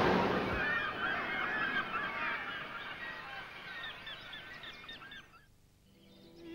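A flock of birds honking: many short, overlapping calls that fade out about five seconds in. The tail of a loud rumble dies away in the first half second.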